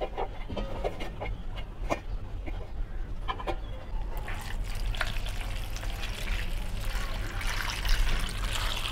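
A stream of water pouring onto okra pods in a stainless steel bowl, a steady splashing that starts about four seconds in. Before it, a few light clicks of okra pods knocking against the steel bowl.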